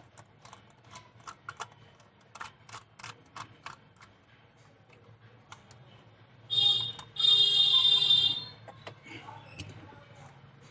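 Light clicking and ticking of a small screwdriver working the screws on a Sony Handycam camcorder's casing, a quick run of small clicks. Past the middle a loud high-pitched buzz sounds twice, first briefly and then for about a second.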